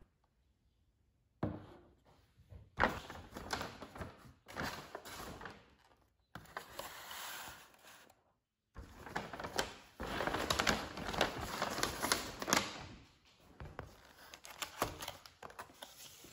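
A paper takeout bag rustling as clear plastic takeout containers are lifted out and set down on a table, with crinkling plastic and sharp knocks, in several short stretches broken by brief silences.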